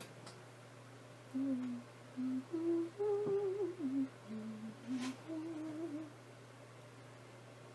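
A woman humming a short tune to herself, a string of held notes that step up and down for about five seconds, then stops. A faint steady low hum runs underneath.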